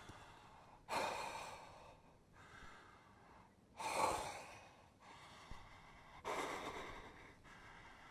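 A man breathing hard: four heavy, gasping breaths a second or two apart, each fading out, the loudest about four seconds in.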